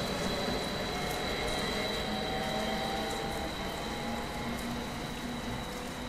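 Abellio Stadler FLIRT electric multiple unit pulling away, its traction drive giving a faint whine that rises slightly as it gathers speed, over a steady hiss of rain.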